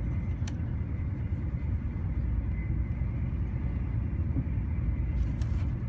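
Steady low rumble of a moving train, heard from inside the passenger carriage.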